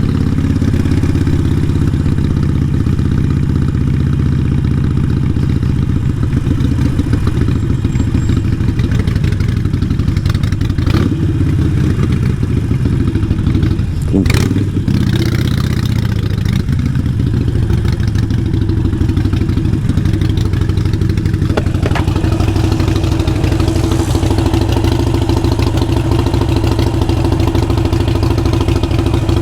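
Harley-Davidson Sportster 883 Iron's air-cooled V-twin, breathing through a Vance & Hines exhaust, running steadily with a deep rapid pulsing. A couple of short knocks come through, the loudest about 14 seconds in.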